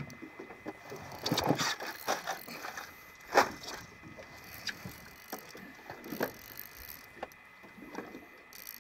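Irregular clicks and knocks at no steady rate, the loudest a sharp knock about three and a half seconds in.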